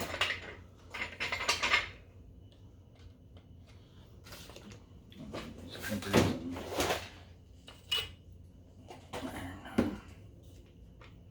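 A small bench vise and metal tools being handled on a workbench: scattered clinks, knocks and scrapes, loudest a little past the middle, over a faint steady low hum.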